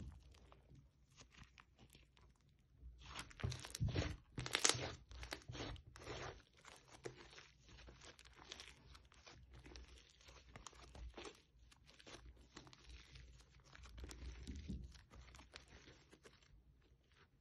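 Crunchy foam-bead slime (floam) being squeezed and stretched by hand, giving a dense run of crackling, crunching pops as the beads are pressed together. The crunching is loudest about three to five seconds in, with another louder stretch near the end.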